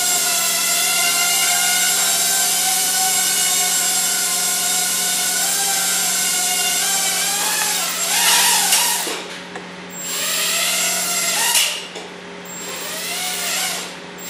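Hubsan H107D X4 mini quadcopter's four small coreless motors and propellers, a steady high whine in flight. About eight seconds in, the motor speed starts rising and falling, so the whine bends in pitch and swells and dips in loudness.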